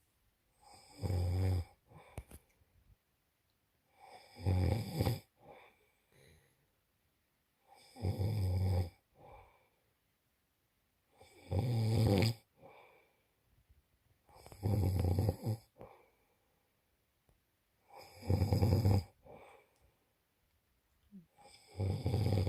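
A man snoring in his sleep: a loud snore about every three and a half seconds, each lasting about a second, with quiet breathing between.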